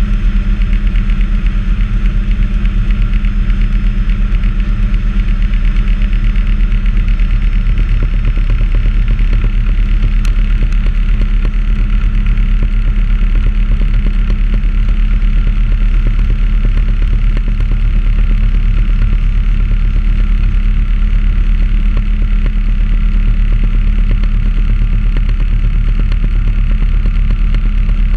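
Bell 206A JetRanger in cruise flight, heard from inside the cabin: the steady beat of the two-bladed main rotor mixed with the even whine and rush of the Allison 250 turboshaft engine, unchanging throughout.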